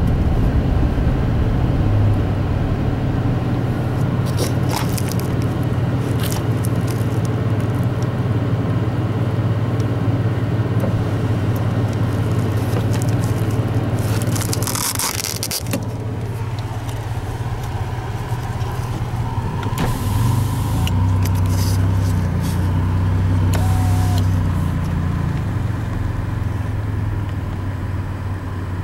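Car running along a paved road, heard from inside the cabin: a steady low engine and road hum. A few light knocks come early, and a brief rush of noise comes about halfway. The hum shifts in pitch a little past two-thirds of the way through.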